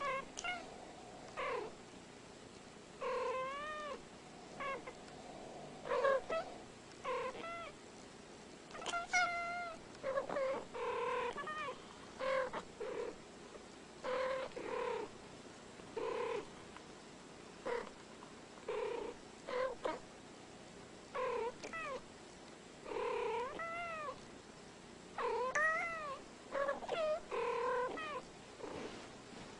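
Domestic cats trading short meows and chirping calls back and forth. There are many brief calls that bend up and down in pitch, often in quick pairs, with short gaps between.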